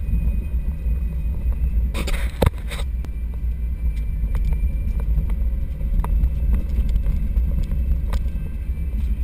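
Car driving fast on a dirt track: a steady low engine and road rumble with rattles and knocks from the bodywork over bumps, the sharpest knock about two and a half seconds in.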